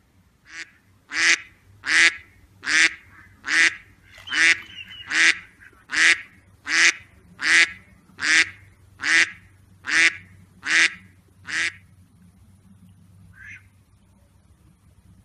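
Mallard hen quacking: a steady series of about fifteen loud, evenly spaced quacks, a little more than one a second, that stops about twelve seconds in. One faint quack follows near the end.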